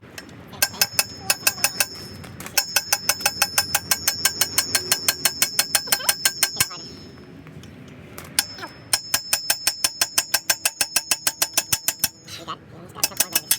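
Rapid metal-on-metal hammer strikes with a bright ringing tone, about five blows a second, driving a bearing out of a BMX bike part. The blows come in three long runs with short pauses between them.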